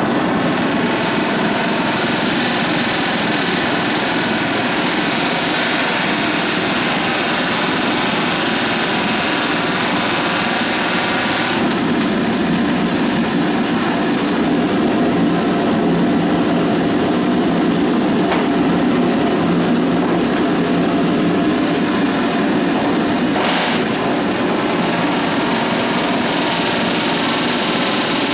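Pneumatic rivet gun hammering hot steel rivets into a ship's hull plates, a continuous rapid rattle of blows. The sound shifts in character about 12 seconds in and again about 24 seconds in.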